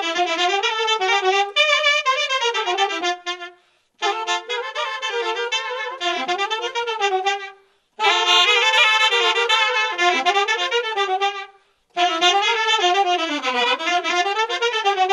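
Taragot and alto saxophone playing a Romanian folk melody together, one wavering, ornamented line. It breaks off to silence briefly three times.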